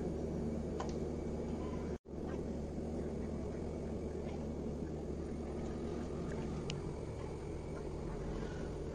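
Steady low background noise with a few faint clicks, cutting out for an instant about two seconds in.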